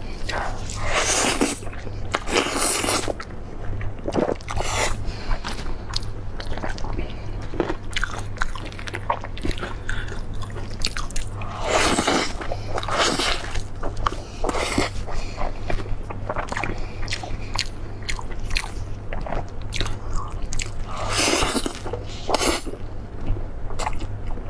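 Close-miked biting, crunching and wet chewing of crispy deep-fried squirrel mandarin fish, with irregular crackles and bites throughout.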